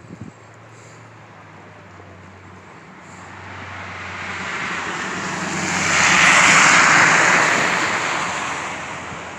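Road noise and a low engine drone from a moving vehicle, with a rushing whoosh that swells over several seconds, loudest about six to seven seconds in, then fades, like another vehicle passing close by. A few clicks come right at the start.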